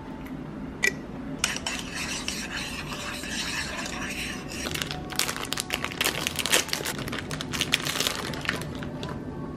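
A utensil stirring and clinking against a bowl: a single click about a second in, then several seconds of rapid scraping and tapping.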